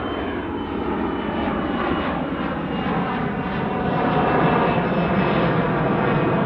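Twin Rolls-Royce AE 3007 turbofans of an Embraer Legacy 650 business jet at takeoff power as it climbs out: a steady rushing jet noise that grows a little louder about four seconds in, with a faint high whine slowly falling in pitch.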